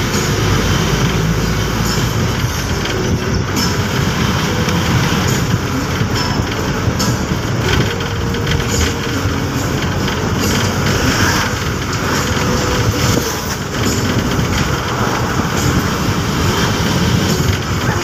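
Steady noise of a moving road vehicle heard from on board: engine, tyres and wind, heavy in the low end and unbroken throughout.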